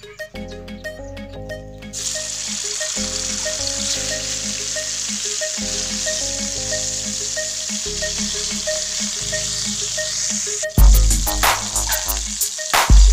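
Chicken breast pieces sizzling as they fry in hot oil in a metal wok, an even hiss that starts about two seconds in. Near the end come a few loud knocks. Background music plays throughout.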